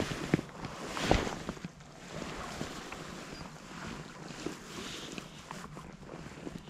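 Wind buffeting the microphone, with a loud rushing sweep and two sharp knocks in the first second or so as a fly rod and line are handled and cast; after that, a steadier windy hiss with small scattered ticks.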